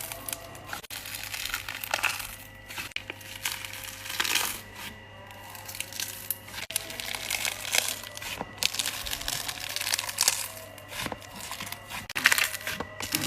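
Slime being squished and pressed by hand, giving irregular crackling clicks and pops.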